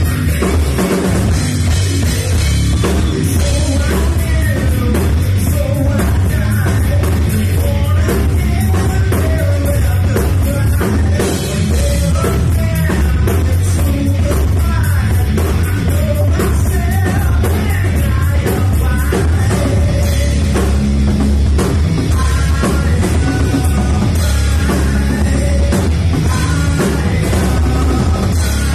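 Rock band playing live and loud: electric guitar, bass guitar and drum kit, with a singer's vocals through the PA.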